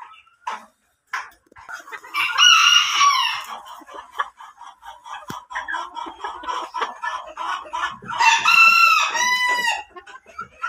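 Roosters crowing twice, about two seconds in and again near the end, over hens clucking.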